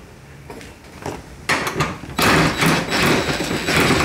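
Hard plastic scraping, rattling and knocking as a second-generation Toyota Prius headlight assembly is pushed and worked back into place. It starts with a few light clicks, then gets louder and busier about a second and a half in.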